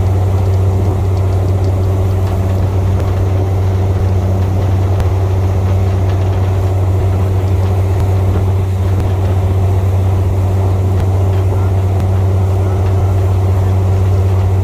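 A boat engine running at a steady speed, making a loud, unbroken low drone.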